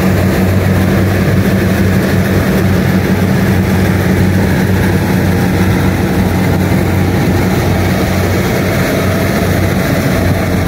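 Combine harvester's diesel engine running steadily as it cuts rice, a low even drone.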